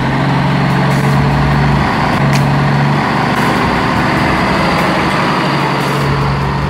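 Heavy truck engine running steadily with a low drone, which steps briefly up in pitch about two seconds in.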